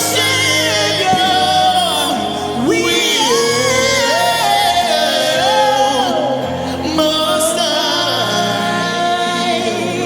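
Gospel worship music: a voice sings long, gliding lines that hold their notes, over steady held low accompaniment chords.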